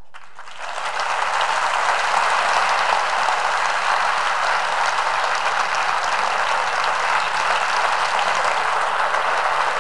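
Audience applauding, swelling up about half a second in and then holding steady.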